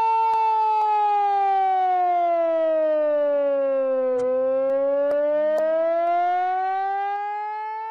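A long siren wail from a handheld megaphone, one unbroken tone that glides slowly down in pitch to its lowest about halfway through, then back up again.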